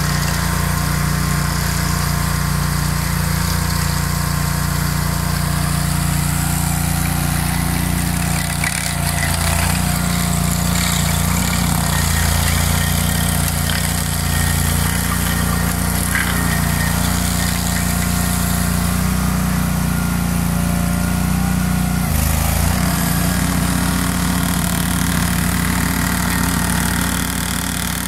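Engine of a tracked stump grinder running steadily under load while its cutting wheel grinds a pine stump into chips. The engine note shifts briefly about three-quarters of the way through.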